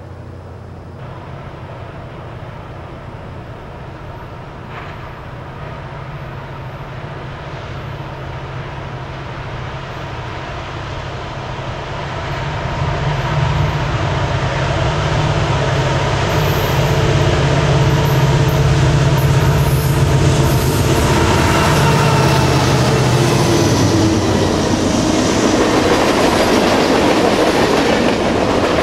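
A freight train led by a UP SD90/43MAC and an NS C40-9W diesel locomotive approaches and passes. The locomotives' low engine drone grows steadily louder and is loudest until about three quarters of the way in. The freight cars then roll by with wheel clatter and some wheel squeal.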